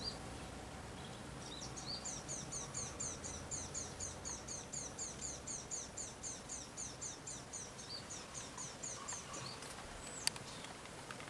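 A bird calling a long, rapid series of short, high notes, each falling in pitch, about three a second. A single sharp click comes near the end.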